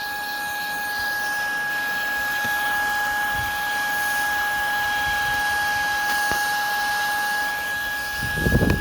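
Shark IZ251 cordless stick vacuum running steadily, its motor making a constant two-pitched whine over a rushing hiss of air, with some low rumbling near the end.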